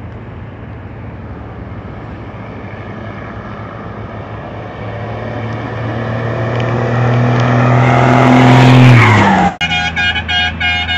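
Fiat 140 truck's diesel engine running as it approaches, growing steadily louder and dropping slightly in pitch as it passes close by. After an abrupt cut near the end, a vehicle horn sounds in short repeated blasts.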